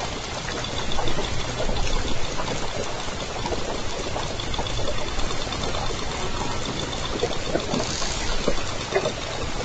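Underwater hydrophone sound of southern resident killer whales (J Pod): trains of echolocation clicks sound over a steady hiss of sea noise.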